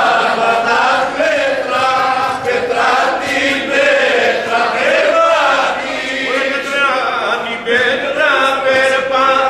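A group of voices, mostly men, singing a Greek demotic folk song together unaccompanied, in long held notes that slide from pitch to pitch.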